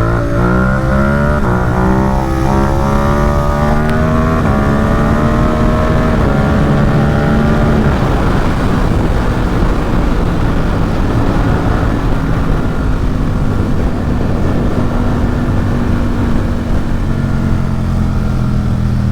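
Ducati Supersport 950 S's L-twin engine breathing through an aftermarket Competition Werkes race exhaust. It pulls up through the gears over the first several seconds, its pitch climbing and stepping at each shift, then settles to a steady cruise under loud wind rush.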